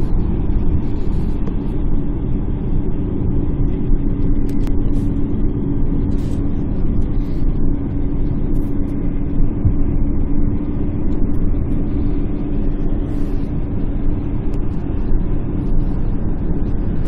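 Steady running rumble of a moving vehicle heard from inside, with a steady hum under it.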